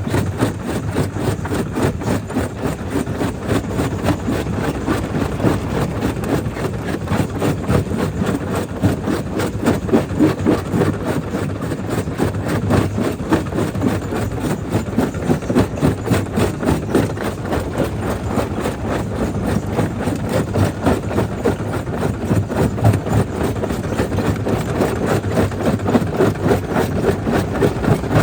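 Jaw crusher running and breaking stone: a continuous heavy mechanical rumble with many irregular knocks and cracks.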